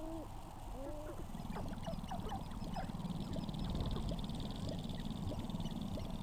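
Sharp-tailed grouse calling on a lek: a few low, arching coos near the start, then a quick run of short, rising clucks and cackles from several males over steady low background noise.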